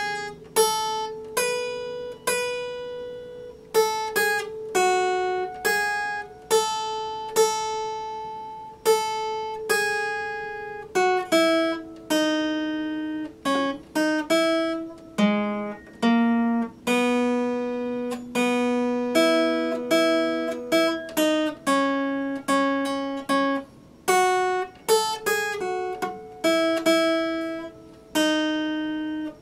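Epiphone acoustic guitar played fingerstyle: a melody of single plucked notes over bass notes, a few notes a second, each ringing and dying away.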